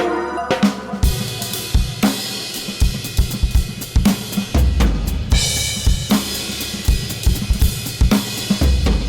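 Free-improvised drum kit playing: irregular bass-drum strikes with snare and cymbal crashes, over steady held tones.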